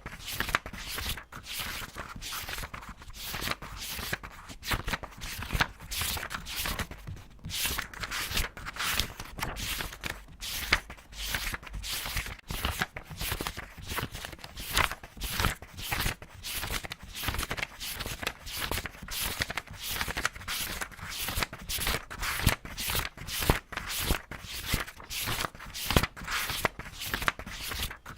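Paper pages being turned quickly one after another, a rapid run of crisp rustles and flicks, several a second without a pause.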